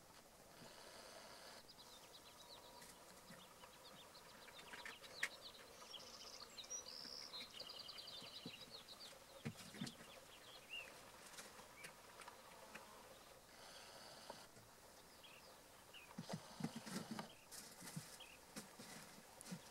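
Near silence with faint natural ambience: a short bird trill of quickly repeated high notes about seven seconds in, brief insect-like buzzes near the start and two-thirds of the way through, and a few soft ticks and rustles near the end.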